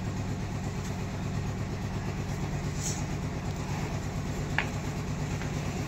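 An engine running steadily at idle, a low even drone. A single sharp click comes about four and a half seconds in.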